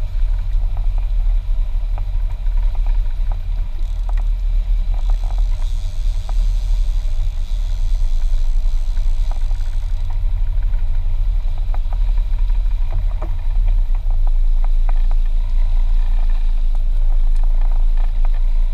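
A fishing boat's engine running with a steady low rumble, with scattered light knocks on top.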